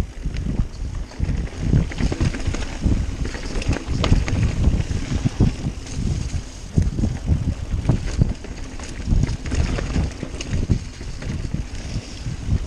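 Off-road vehicle working over a rough, rocky trail: uneven low rumble with wind buffeting the microphone and scattered knocks and bumps.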